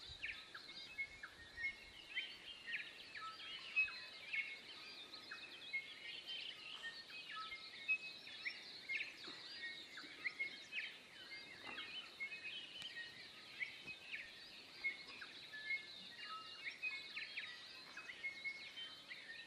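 Faint chorus of many birds singing and chirping together, a dense, continuous tangle of short calls.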